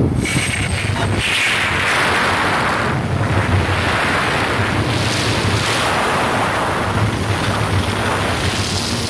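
N700 Shinkansen bullet train pulling into the station alongside the platform. A loud, steady rush of air and wheel noise as its cars sweep past, starting suddenly as the nose reaches the platform.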